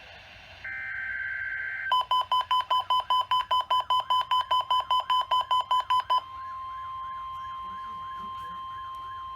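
NOAA Weather Radio SAME header: a burst of the two-tone digital data warble. Then a weather alert radio's alarm beeps rapidly, about five beeps a second for about four seconds, and gives way to a steady alert tone with a repeating warble above it.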